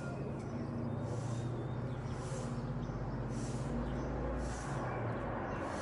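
Steady low rumble of a twin-engine widebody jet airliner on approach with its landing gear down, passing low overhead. A short high chirp repeats about once a second throughout.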